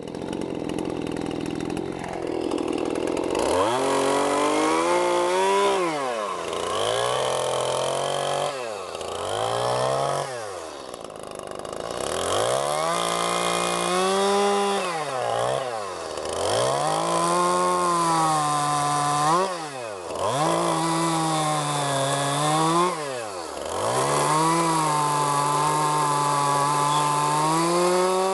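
Stihl two-stroke chainsaw cutting into a wooden post, revved hard with its pitch wavering under load, then dropping sharply toward idle and climbing again every few seconds between cuts.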